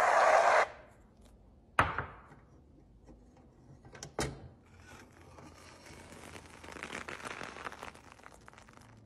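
Stainless steel potato ricer: a loud hiss cuts off just under a second in, then two sharp metal clunks as the press is closed, followed by a soft crackling squish as a white substance is forced out through the perforated basket.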